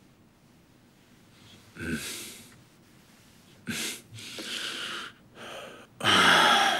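A man's heavy breaths: a few sighing in- and out-breaths after a quiet start, the loudest near the end.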